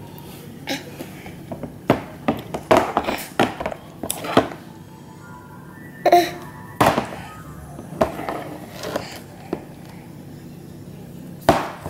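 Plastic baby bottle knocked and tapped against a plastic high-chair tray in irregular short thunks, with a baby's brief vocal sounds in between.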